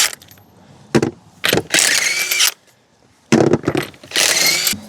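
Metal hand tools clicking and rattling in several separate bursts, some short clicks and a few lasting about half a second to nearly a second.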